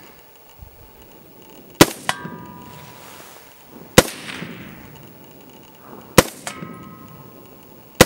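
FN SCAR 16S rifle in 5.56 firing slow, evenly spaced single shots, about two seconds apart, four in all with the last right at the end. A fraction of a second after each sharp crack comes the ringing clang of a steel target being hit.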